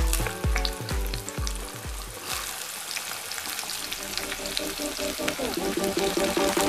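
Sliced onions sizzling and crackling as they go into hot oil in a kadai, deep-frying. Background music with a steady beat fades out over the first two seconds and comes back near the end.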